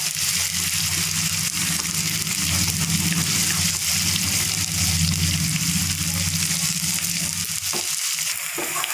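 Chopped onions and ginger-garlic paste sizzling in hot oil in a non-stick kadai as they brown, stirred around the pan with a wooden spatula. A steady low hum runs underneath.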